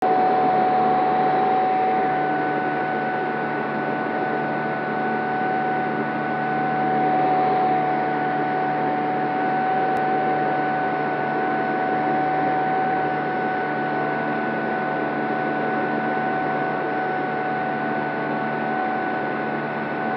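Electric Sonex Xenos motorglider in powered cruise, heard from inside the cockpit: the electric motor and propeller give a steady whine at two pitches over a constant rush of air.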